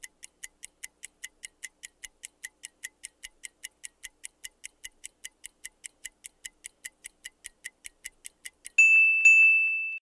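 Countdown-timer sound effect: a clock ticking at about four or five ticks a second, then a loud bell-like ring for about the last second as the time runs out.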